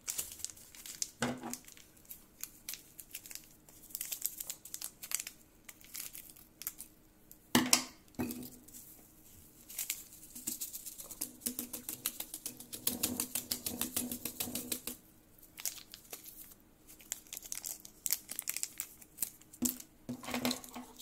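Small plastic seasoning sachets crinkling and being torn open, with seasoning shaken out over a dry block of instant noodles: long runs of sharp crackles, with one louder crackle about seven and a half seconds in.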